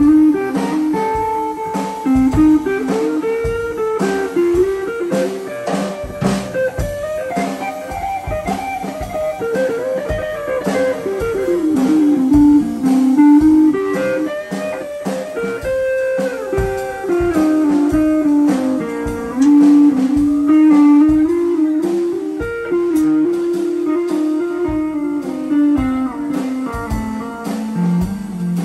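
Live blues band playing: a Stratocaster-style electric guitar takes a lead solo of sustained, bent notes over a drum kit.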